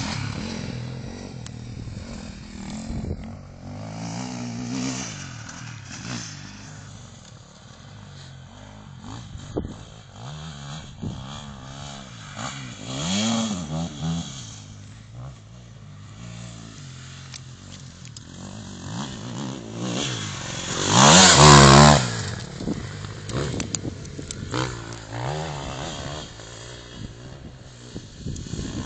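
Dirt bike engine revving up and down as it rides, its pitch rising and falling again and again. The loudest and highest rev comes about three quarters of the way through.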